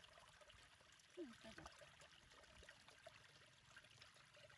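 Faint trickling and splashing of shallow paddy-field water stirred by a hand, with one short falling voice-like sound about a second in.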